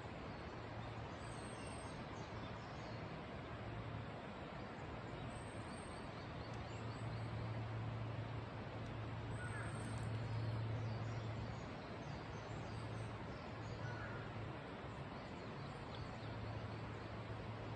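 Outdoor ambience: a steady rushing noise with a low hum underneath, swelling a little around the middle, and a few faint, short high bird calls.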